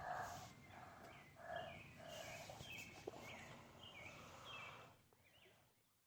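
Faint outdoor background of a bird chirping repeatedly in short, falling notes over a low murmur, dropping to near silence about five seconds in.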